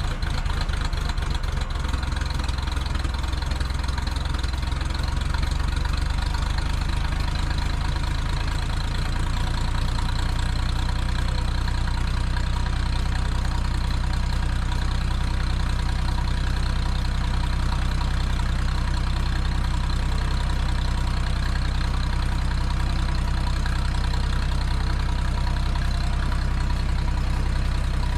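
Old loader's engine idling steadily right after a cold start, warming up.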